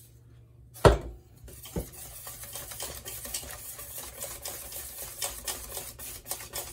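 Wire whisk beating thick batter in a stainless steel bowl, the wires clicking and scraping quickly against the metal. About a second in, a single sharp knock, the loudest sound, as a wooden pepper mill is set down on the countertop.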